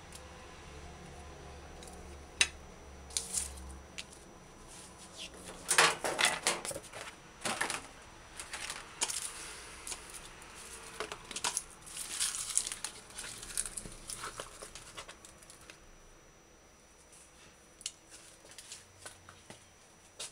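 Dry, papery onion skin crackling and tearing as an onion is peeled by hand, then rustling as the skins and scraps are swept across a marble countertop. The crackles are irregular, densest about six seconds in and again around twelve seconds, and thin out to a few light ticks near the end.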